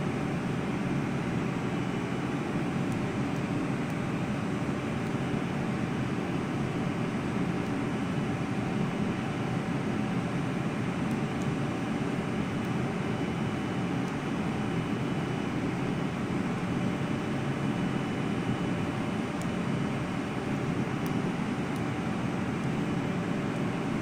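Steady, unchanging machinery noise: a constant even rush with a faint high whine and a few faint hum tones on top.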